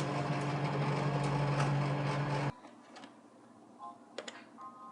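A steady machine hum with a low, even drone cuts off abruptly about two and a half seconds in. After it come a few faint clicks and short high beeps.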